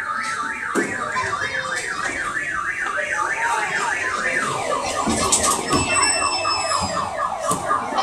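An electronic siren-like warble, the pitch rising and falling about four times a second, dropping to a lower range about halfway through. A few knocks and bumps sound over it.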